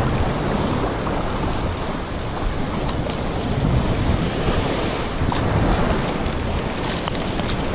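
Shallow surf washing steadily around a cast net being dragged through the water, with wind rushing on the microphone.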